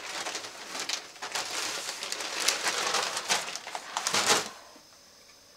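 A run of irregular rustling and crinkling noises with a few sharper scrapes, stopping about four and a half seconds in.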